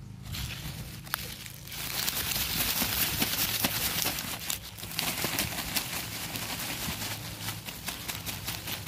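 Pak choy being pulled up by hand close to the microphone: leaves and stems rustling and crinkling with many small crackles, starting about two seconds in.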